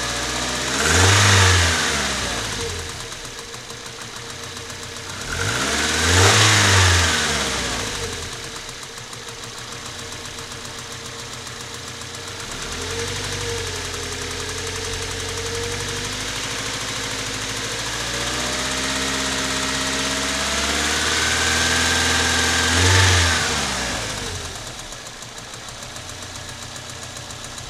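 Car engine with a knocking hydraulic valve lifter, ticking rapidly as it idles. It is blipped twice, then brought up slowly and held at raised revs, blipped once more, and dropped back to idle near the end.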